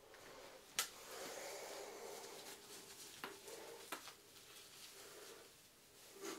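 Soft rustling of hair and synthetic wig fibres as a wig is pulled on over the head, with a few light clicks, the sharpest about a second in.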